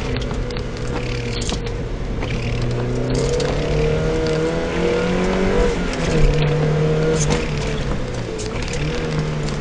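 Car engine heard from inside the cabin during an autocross run, its pitch stepping up and down several times as the driver accelerates and lifts between the cones.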